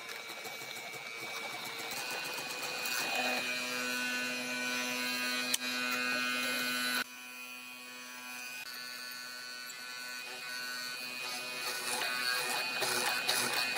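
Benchtop hollow-chisel mortiser's electric motor running with a steady whine while its square chisel bores into a wooden board. The level drops suddenly about halfway through.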